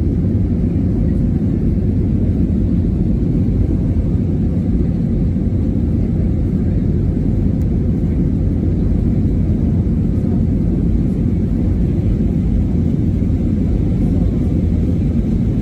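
Steady low rumble of an airliner's engines and rushing air heard inside the cabin as the plane climbs after takeoff.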